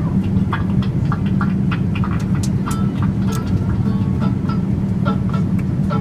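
Steady drone of airliner cabin noise in flight, with faint acoustic guitar strumming coming over the cabin PA as a string of short, sharp strokes on top.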